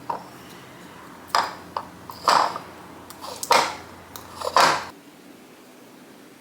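Kitchen handling sounds: about five short scraping strokes over a few seconds, the kind made by working ingredients in a bowl with a utensil.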